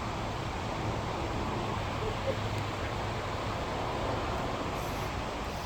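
Steady rushing roar of Multnomah Falls, an even, unbroken wash of falling water.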